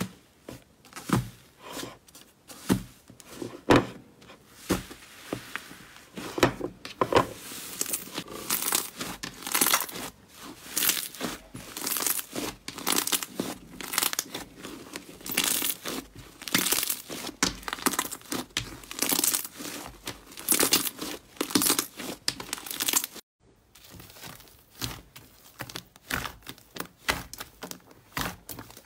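Airy white inflated slime studded with foam beads being pressed and squeezed by hand, giving dense, irregular crackling and tearing sounds as its air pockets give way. The sound cuts out briefly about three-quarters in, then lighter crackles follow as a soft mint-green clay-like slime is squeezed.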